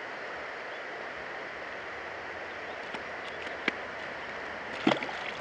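River current flowing steadily around a wading angler, with a few sharp clicks, the loudest near the end.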